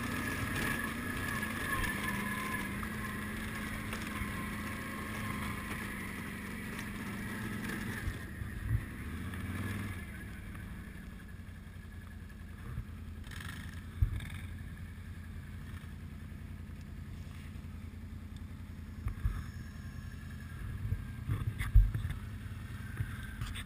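ATV engine running steadily, then easing off to a quiet low idle about eight seconds in, with a few short knocks and thumps.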